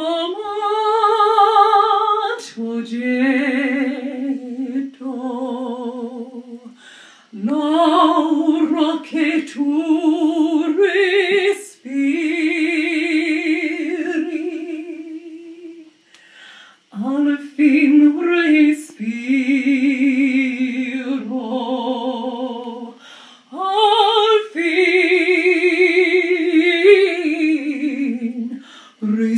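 A woman singing a capella without words, long held notes with vibrato in phrases of a few seconds, broken by short pauses for breath.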